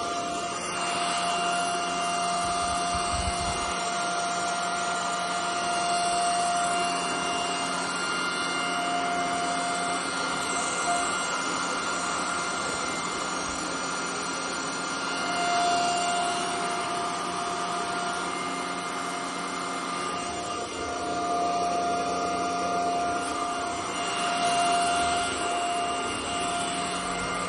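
Anyson cordless stick vacuum cleaner running, its motor giving a steady high whine over a rush of air. The whine fades and comes back a few times.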